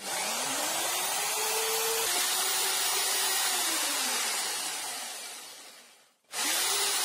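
Rotary hammer in drill-only mode (no hammering), its motor starting with a rising whine and running at speed to turn a lathe drilling head. About four seconds in it winds down and stops, then it is started again just before the end.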